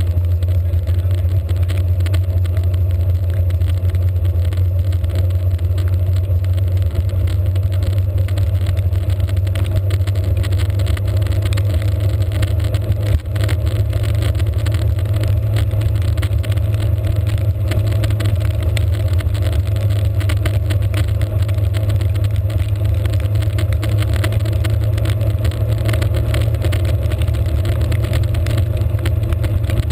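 Steady low rumble of wind buffeting and road vibration picked up by a handlebar-mounted GoPro on a bicycle moving along a wet road.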